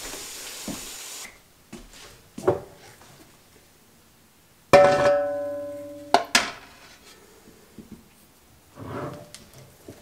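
Water pouring into an aluminium pressure canner stops in the first second, followed by a few light knocks. About five seconds in, the canner is struck sharply and rings like a bell for more than a second. Two more knocks cut the ringing off.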